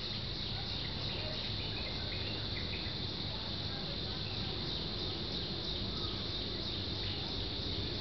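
Steady high-pitched chirring of insects, unbroken throughout, over a low background rumble.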